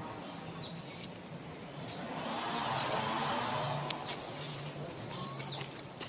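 Outdoor ambience with a few short, high, falling bird chirps spread through it, over a low steady hum. A soft rush of noise swells and fades between about two and four seconds in.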